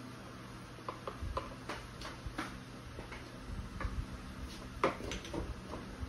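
Light, irregular clicks and crackles from a toasted sandwich being handled on a ceramic plate as its top slice is lifted, the loudest a little before five seconds in, over a faint steady low hum.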